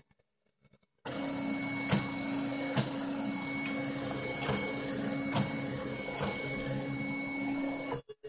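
Stepper motors (NEMA 17) of a homemade 3D printer driving the gantry and bed through a test move: a steady motor whine with a sharp click about every second, starting about a second in and cutting off suddenly near the end.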